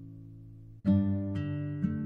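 Background music on acoustic guitar: a chord dies away, then a new chord is strummed a little under a second in, followed by single plucked notes.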